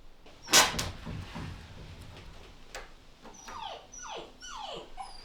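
A dog whimpering: several short whines, each falling steeply in pitch, starting about three seconds in. A sharp knock sounds near the start.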